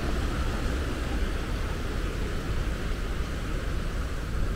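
Road traffic noise: a car driving past on a coastal road, over a steady low rumble and hiss.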